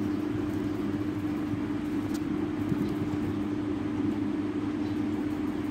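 Steady mechanical hum with one strong low tone and a noisy rush above it, unchanging throughout.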